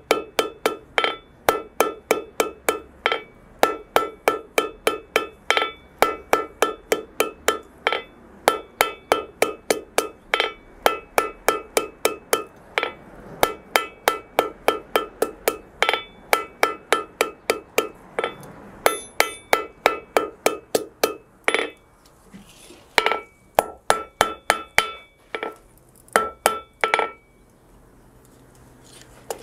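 Hand hammer striking a red-hot iron arrowhead blank on an anvil in rapid, steady blows, about four a second, each with a clear metallic ring. The blows are forging a medieval bodkin (type nine) arrowhead. The hammering stops twice for a second or so near the end.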